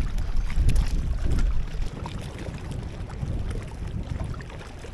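Wind buffeting the microphone as a gusty low rumble, strongest in the first two seconds and then easing.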